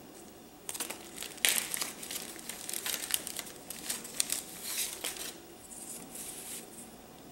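Clear plastic zip bags and translucent paper envelopes crinkling as they are handled and pulled apart. Starts about a second in, is busiest through the middle, and eases off near the end.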